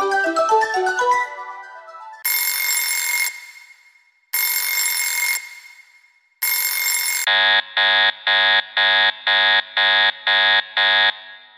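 Synthesized Emergency Alert System-style alarm: a quick run of chiming mallet-like notes, then three blasts of a buzzing data tone about a second long each, a second apart, in the manner of EAS header bursts. Then a harsh pitched alarm tone beeps eight times, about two beeps a second.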